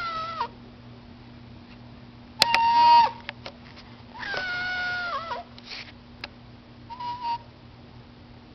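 Domestic cat meowing at a closed door, asking to be let out. One call trails off at the start, a loud meow comes about two and a half seconds in, a longer one follows a couple of seconds later, and a short faint one comes near the end.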